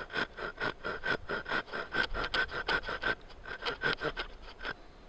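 Folding hand saw scoring a shallow stop cut into a peeled wooden log with quick, short back-and-forth strokes, about four or five a second, that stop near the end.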